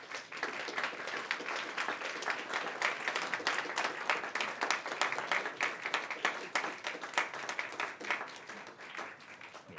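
Audience applauding: dense clapping from many hands that thins out and fades toward the end.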